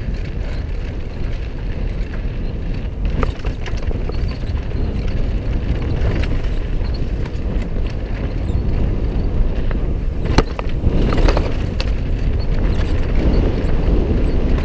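Mountain bike running down a dirt singletrack: a steady rush of wind and tyre noise, with clatter and knocks from the bike, the sharpest about ten seconds in. The rider says the drivetrain is squeaking and knocking.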